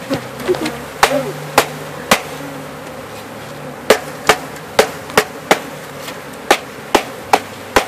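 A wooden, screened bee package being knocked hard over a hive to shake the last bees out: a dozen or so sharp knocks, three in the first couple of seconds, then a quicker run from about four seconds in. Under them runs the steady hum of a mass of honeybees.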